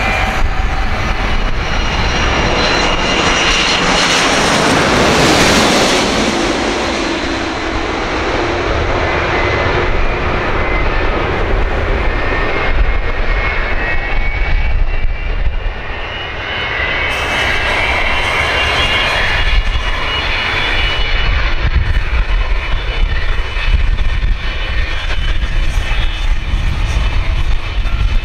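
Airbus A330-300 airliner's General Electric CF6-80E1 turbofans passing low overhead on landing approach, their whine falling in pitch as it goes by. After touchdown the engine noise swells again with rising tones, as reverse thrust spools up while the jet rolls out.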